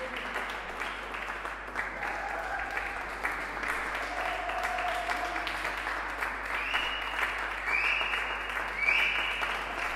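Audience applauding, a dense, steady clatter of many hands clapping, with a few short high tones over it near the end.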